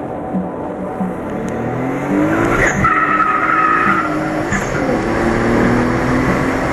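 Nissan 300ZX's 3.0-litre V6 accelerating hard, the revs climbing through one gear, breaking at a gear change about two and a half seconds in, then climbing again through the next gear. A high steady squeal sounds for about a second just after the change.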